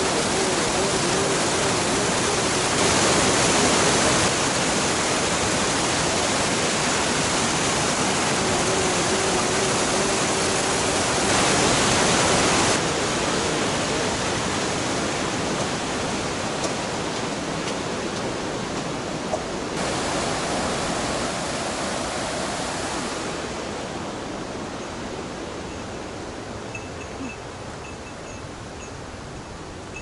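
Loud, steady rush of whitewater in a boulder-strewn mountain stream, fading gradually over the last several seconds as the listener moves away from it.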